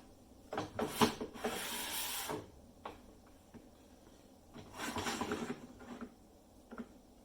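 Parts of a small benchtop wood lathe being handled and adjusted: a few clicks and a sharp knock about a second in, then two scraping, sliding rubs.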